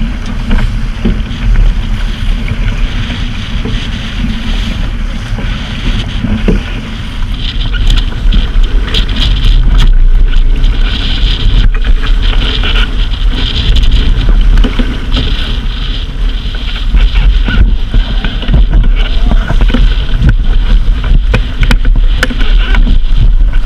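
Wind buffeting the microphone over the rush and splash of water along the hull of a Tartan 10 sailboat heeled over and sailing hard through choppy waves. It grows louder about a third of the way in.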